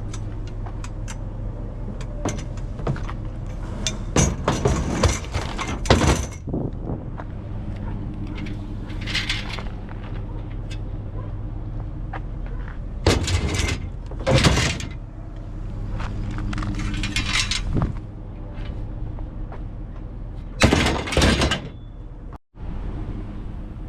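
Metal scrap clanking and banging as it is handled, in several loud bursts, over the steady hum of an idling vehicle engine.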